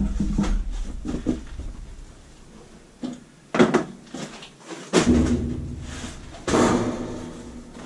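Three sudden clunks about a second and a half apart, each fading over about a second, with a low rumble in the first second.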